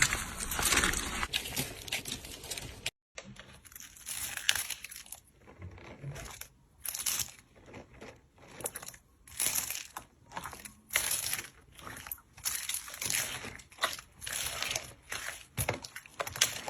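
Slime being squeezed and worked by hand, with crisp crinkling and crunching crackles. Dense and continuous at first, then after a brief break about three seconds in it comes as separate squishes and crackles every half second to a second.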